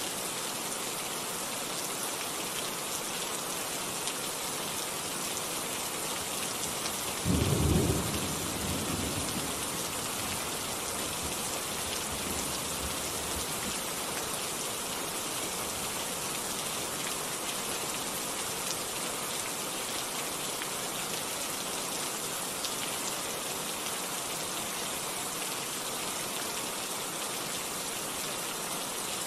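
Steady rain falling, with one thunderclap about seven seconds in, the loudest sound here, which rumbles away over the next couple of seconds.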